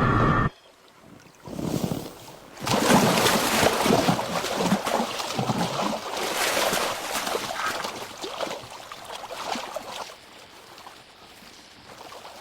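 Loud splashing and churning water for several seconds, beginning a little over two seconds in, from a bobcat lunging into a river after fish.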